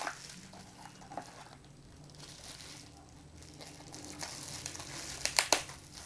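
Plastic bubble wrap crinkling as it is handled and pulled open, with a few sharp crackles a little over five seconds in, the loudest part.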